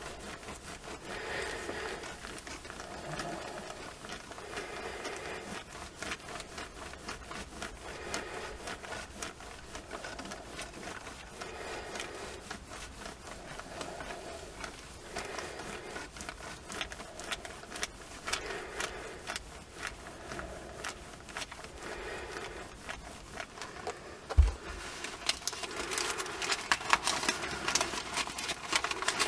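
A steam iron slid back and forth over folded newspaper in a steady rhythm, a swish about every second and a half, pressing a warped plastic radio dial flat with heat. Near the end a single thump, then the newspaper pages rustle as they are lifted.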